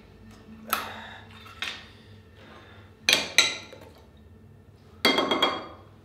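A small tin of tuna being opened and its contents knocked out onto a plate: a few separate metallic clicks and scrapes, with the loudest ringing clinks of the can against the plate about three and five seconds in.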